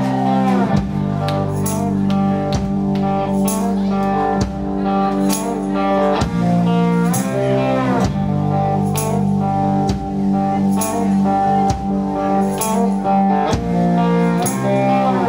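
Live blues-rock band playing a song's instrumental intro: electric guitar lead with bent notes over bass and drums keeping a steady beat.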